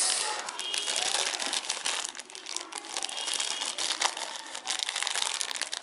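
Thin plastic wrapping crinkling as hands unwrap it: a dense, continuous run of small crackles.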